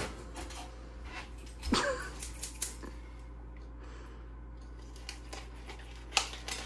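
Scissors cutting into a plastic bacon package, with a short sharp snip near the end, after a knock about two seconds in and a few light handling clicks.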